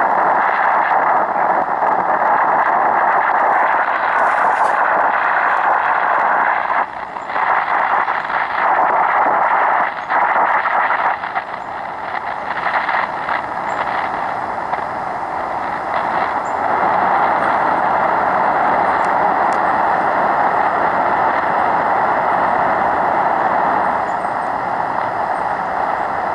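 Tecsun PL-680 shortwave receiver in upper-sideband mode on an idle aeronautical channel: a steady rush of static hiss, narrowed to the voice band by the sideband filter. The hiss dips briefly twice, about a third of the way in.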